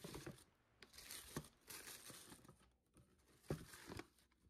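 Faint rustling and crinkling of tissue paper and a cardboard shoebox being handled, in short bursts. A soft knock about three and a half seconds in as the box lid goes on.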